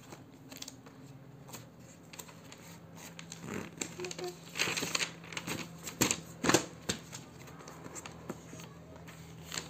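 Pages of a large paper workbook being turned and handled, rustling and crinkling, loudest in several sharp bursts about halfway through.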